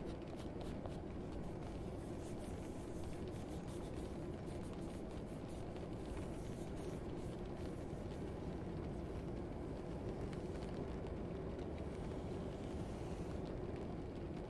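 Classroom ambience: a steady low rumble with faint, scattered ticks and scratches over it.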